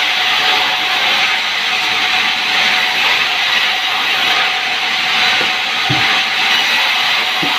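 Sawmill saw running steadily through a log, with a steady hissing cutting noise and a faint constant tone. Two brief low knocks come near the end.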